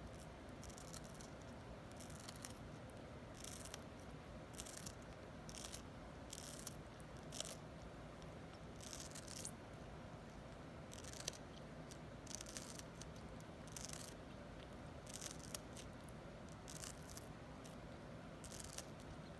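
Cockatoo biting into a slice of watermelon: short, crisp, wet crunches and beak clicks at irregular intervals, roughly one a second.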